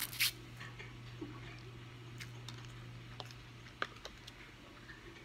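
A forkful of pesto pasta noodles slurped into the mouth once, briefly, near the start, then close-up chewing with scattered sharp wet mouth clicks.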